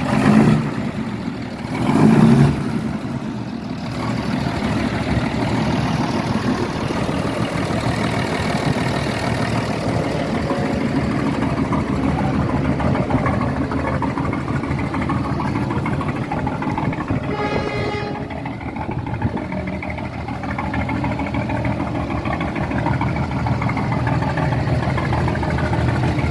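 1953 Scania-Vabis truck engine running steadily at a low rumble, with two louder swells in the first few seconds. A short, higher pitched tone sounds about two-thirds of the way through.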